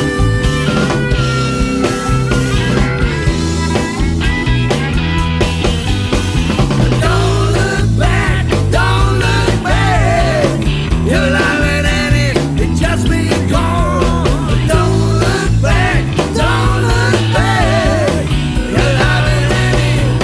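Rock band playing an instrumental passage: a lead line with bending notes over a steady bass.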